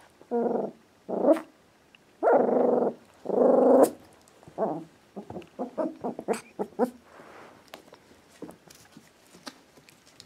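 Four-and-a-half-week-old Australian Labradoodle puppy barking and growling in play: four longer calls in the first four seconds, then a run of shorter ones that fade out.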